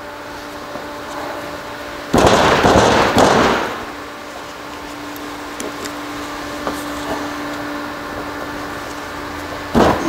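A seal puller prying at a tight seal in a Borg-Warner 1356 transfer case housing, where the seal mates up against the shaft. About two seconds in there is a loud scraping rasp lasting about a second and a half, and a shorter one comes near the end, with a few faint clicks between, over a steady low hum.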